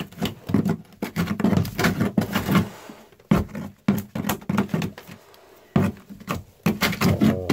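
Rotten, waterlogged balsa deck core being pulled away by hand from the underside of a fiberglass deck: irregular cracks, knocks and scrapes as the pieces break loose.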